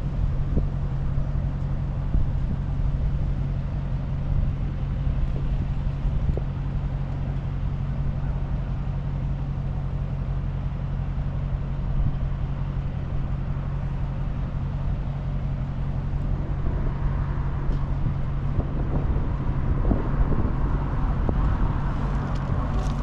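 Steady low drone of an idling vehicle engine under outdoor road traffic noise, with a higher hiss building up over the last few seconds.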